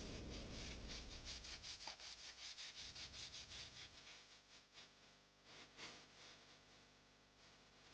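Abrasive hand rubbing on a knife blade, such as sanding off rust, in quick back-and-forth strokes of about four to five a second. The strokes are faint and die away about halfway through, with a couple of single strokes near the end.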